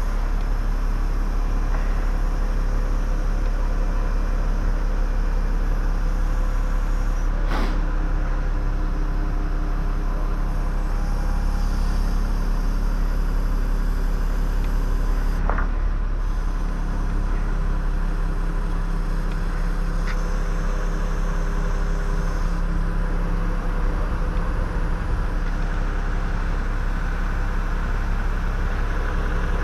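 An engine running steadily at idle, a low drone that holds level throughout, with a faint click about a third of the way in.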